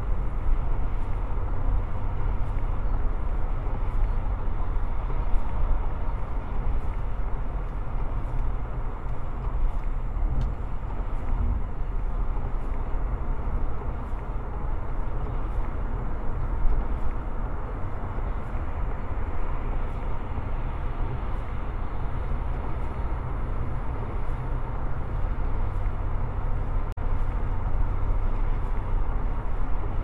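Steady road noise heard inside a car cabin at highway speed: tyres on wet pavement and the car's own running, with a strong deep rumble.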